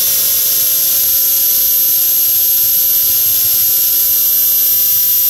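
Makita cordless drill running at a steady speed with a 3/16-inch bit boring through the first wall of a metal tube: a constant high-pitched whine over a loud hiss.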